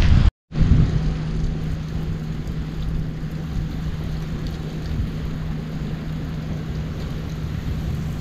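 Gas fire pit burning with a steady rushing sound, mixed with wind rumbling on the microphone and a low steady hum. The sound drops out briefly about half a second in, then runs on evenly.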